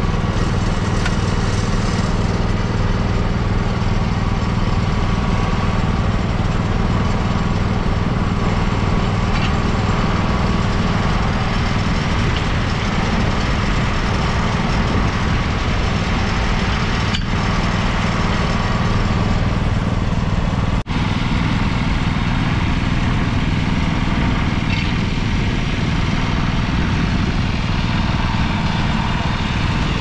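Farm machinery engine idling steadily.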